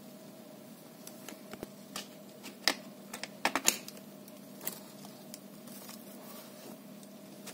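Plastic display bezel of a Dell Precision 5520 laptop being pressed onto the screen assembly: a few scattered sharp clicks as its edge snaps into place, the loudest about two to four seconds in.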